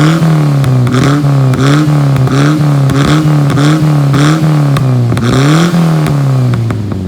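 Toyota 4K four-cylinder engine being revved through a new exhaust, its pitch rising and falling in quick, regular blips about one and a half times a second, with sharp pops and crackles from the exhaust.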